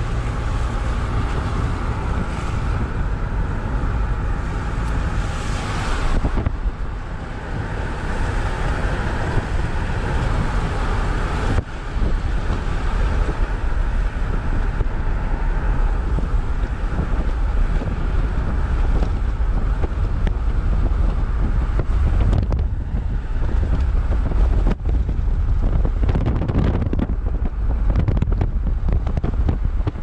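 Wind buffeting the microphone: a steady, loud, low rumbling rush that rises and falls in gusts, with a brief lull about six seconds in.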